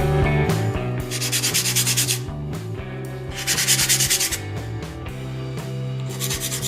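Edge of a plexiglass window pane being sanded down to fit, in three bursts of abrasive scraping about a second each, over background music.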